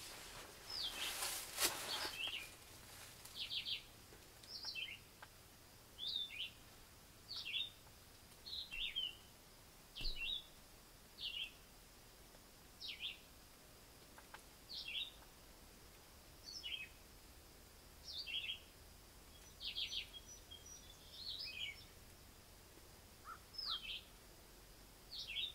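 A songbird singing short, high, slurred phrases over and over, about one every second or so. A brief rustling crackle comes about a second in.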